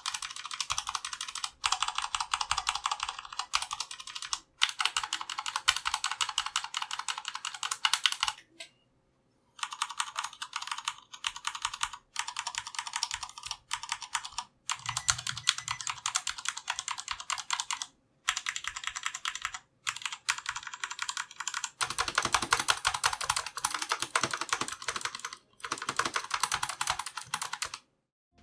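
Typing on a Durgod Fusion 65% mechanical keyboard: rapid runs of key clicks broken by short pauses every few seconds.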